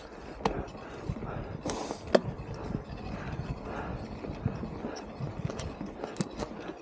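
Mountain bike riding over a dry dirt trail: a steady rolling rumble of tyres on the ground, broken by frequent irregular clicks and knocks as the bike clatters over bumps.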